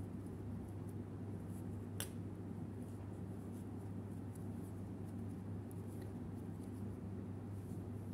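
Faint ticking and scratching of a metal crochet hook pulling yarn through stitches, with one sharper click about two seconds in, over a steady low hum.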